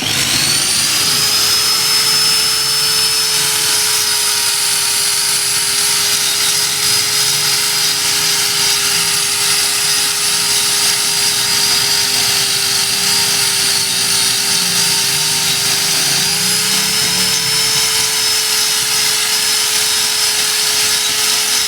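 Power grinder spinning up with a rising whine, then running steadily as it grinds excess crack-repair filler flush with a concrete slab. Its pitch shifts slightly about 16 seconds in.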